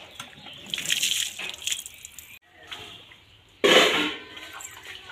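Water splashing and sloshing as hands rinse wet, scraped-off goat hair and skin on a wet stone slab under a hand pump, with a louder splash a little under four seconds in.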